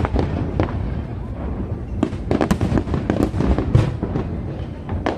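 Aerial fireworks bursting in quick succession: many sharp bangs and crackles, thickest in the middle, over a continuous low rumble.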